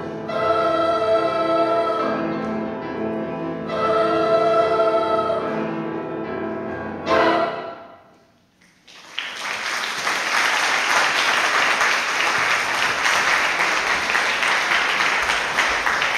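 Youth choir singing long held chords, ending on a short final chord about seven seconds in. After a brief hush, the audience applauds steadily to the end.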